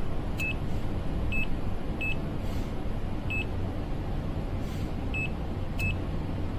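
HABOTEST HT121 pen-type multimeter's buzzer giving six short, high beeps at uneven intervals during its three-phase rotation-sequence test, over a low steady hum.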